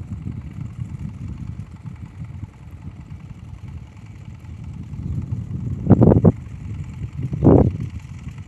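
Wind buffeting the microphone in a steady, uneven low rumble, with two short, louder gusts about six and seven and a half seconds in.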